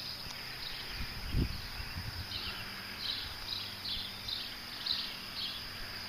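Outdoor summer ambience: a steady high insect drone with a bird chirping over and over. There is a brief low rumble about a second in.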